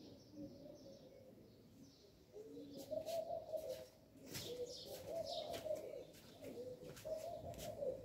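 A dove cooing in repeated phrases, growing louder about three seconds in, with small birds chirping briefly over it.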